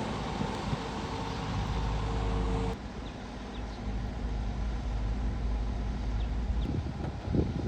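Caterpillar hydraulic excavator's diesel engine running steadily, a low hum. The sound changes abruptly about three seconds in and carries on a little quieter.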